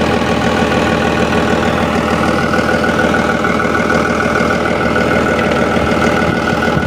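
An engine running steadily at idle, with a fast even pulse; a steady higher whine joins about two seconds in.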